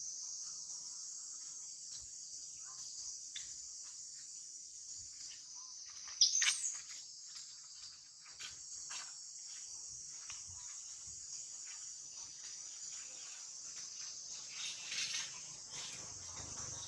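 Steady high insect chorus, with scattered small clicks and rustles. About six seconds in, a monkey gives one short, high squeal that rises and falls in pitch.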